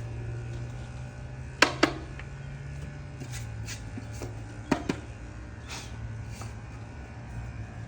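Two pairs of short clicks and knocks from handling the plastic air filter and airbox, over a steady low hum.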